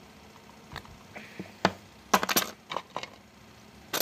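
Hard plastic clicks and snaps as the cap of a glue pen is worked off by hand. One loud click comes about a second and a half in, a quick run of clicks just after two seconds, and more near the end.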